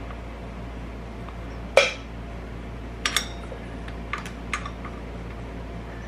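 Metal hand tools clinking and knocking on metal during work on a motorcycle carburetor's intake boot clamps: one sharp clank about two seconds in, then a handful of lighter clinks, over a steady low hum.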